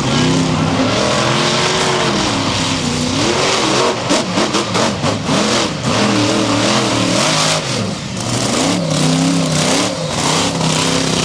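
Monster truck engine revving up and down as the truck drives across the track and onto the dirt. About four seconds in there is a choppy stretch of quick on-off throttle blips before it revs smoothly again.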